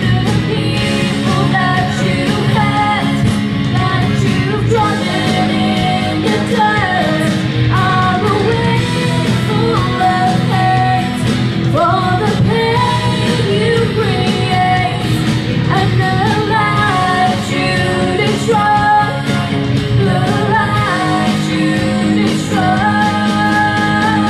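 A woman singing a slow pop ballad into a microphone, amplified through PA speakers over a recorded backing track, holding long notes that glide between pitches.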